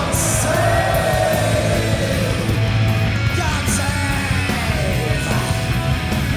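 Punk rock band playing live, with electric guitar, bass and drums under a shouted, sneering lead vocal. The vocal has two long phrases that slide down in pitch.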